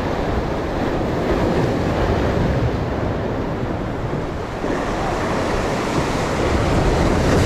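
Heavy surf breaking and washing over shore rocks in a rough sea, with wind buffeting the microphone. The wash grows brighter and hissier a little past halfway as a bigger wave breaks.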